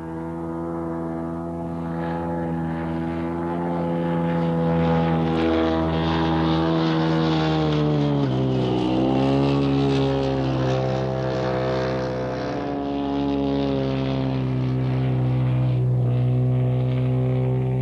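Large piston engine and propeller of a giant-scale RC model aircraft running in flight, a steady pitched drone. About eight seconds in the pitch dips sharply and climbs back again.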